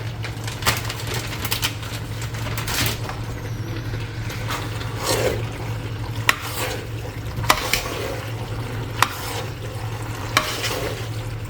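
Utensil stirring mince pasta sauce in a hot pan, the sauce sizzling, with irregular sharp clicks of the utensil against the pan over a steady low hum.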